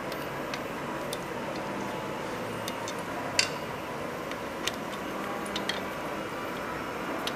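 A steel hex key turning in the bolts of a 3D printer's X-axis carriage block, making irregular light metallic clicks, the loudest about three and a half seconds in, over a steady background hum.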